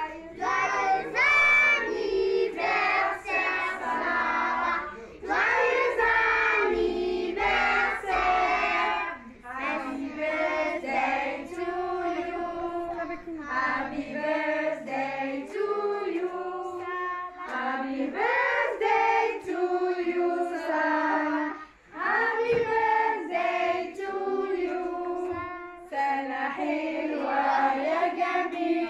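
A group of children and women singing a birthday song together.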